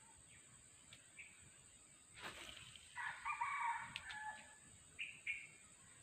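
A rooster crowing once, a call of about a second and a half, with a short rustle just before it and a couple of brief chirps after. A steady high whine runs underneath.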